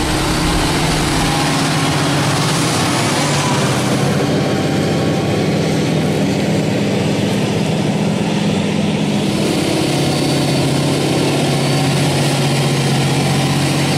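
Deutz-Fahr 9340 TTV tractor's six-cylinder diesel engine running steadily under load, pulling a reversible plough through the soil; its hum drops slightly in pitch about ten seconds in.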